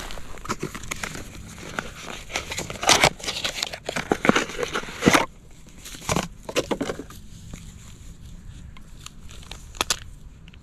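Irregular rustling and crinkling handling noise with scattered sharp clicks, heaviest in the first half with two louder bursts, then thinning to occasional clicks.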